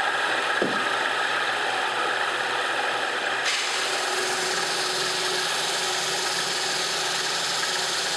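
Drum sander running while a thin guitar plate is sanded under its sandpaper-wrapped roller: a steady, even grinding hiss over a motor hum. The higher hiss changes slightly about three and a half seconds in.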